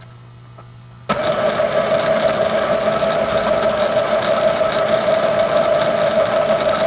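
Milling machine running under power, starting abruptly about a second in and then running steadily with a strong, steady whine.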